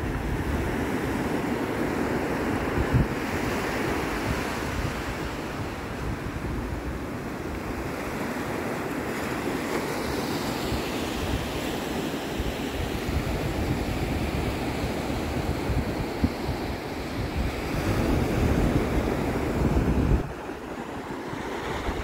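Ocean surf breaking and washing up onto a sandy beach, with wind buffeting the microphone in a low rumble that drops away near the end.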